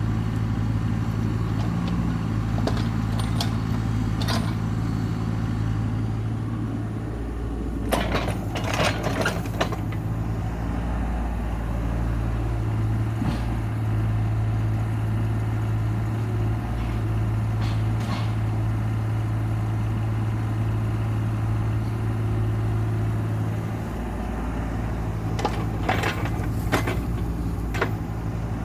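Heavy land-clearing machine's diesel engine running steadily under load, its pitch shifting a little at times. Bursts of metal clanking and rattling come about eight seconds in and again near the end.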